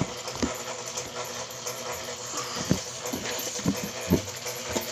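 Electric fan running with a steady hum, with about six short, dull thumps spread through it.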